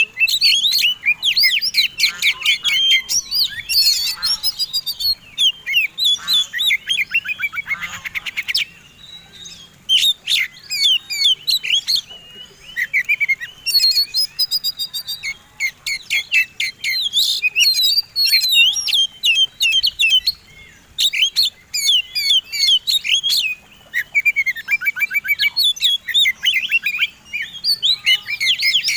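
Oriental magpie-robin (kacer) in full, vigorous song: a fast, varied stream of sweeping whistles and chattering notes, broken by several rapid rattling trills and a few short pauses. This is the aggressive, full-voiced song of a male in fighting form.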